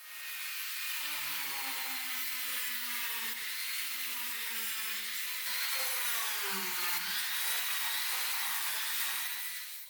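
Small electric power tool running for about ten seconds, a whine over a hiss, its pitch wavering and dipping for a moment about two-thirds through before it picks up again; it starts and cuts off abruptly.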